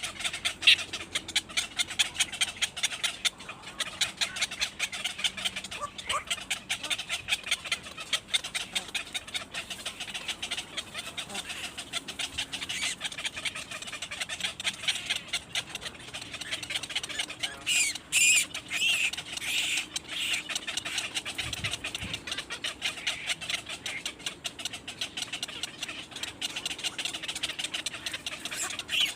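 Birds chirping continuously, many short high calls a second, growing louder and shriller for a few seconds past the middle.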